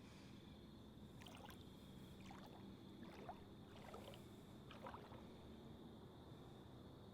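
Near silence with faint water sounds: about five soft splashes or laps over a steady faint high-pitched hum.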